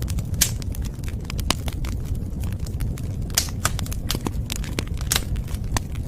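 Wood fire crackling: irregular sharp pops and snaps, several a second at uneven spacing, over a steady low rush.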